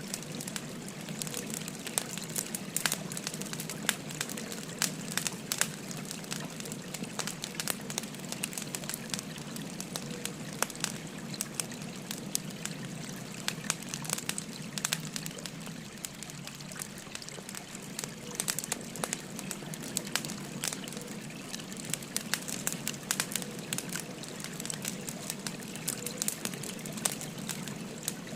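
Burning firewood crackling with frequent irregular sharp pops, over the steady rush of a babbling river.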